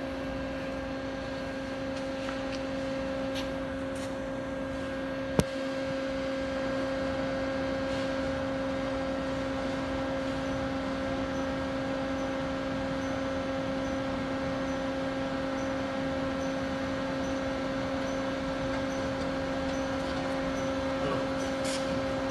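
Doosan Lynx 220LC CNC lathe running a program: a steady hum with a fixed low tone, and one sharp click about five seconds in. Faint high pips come about once a second in the second half.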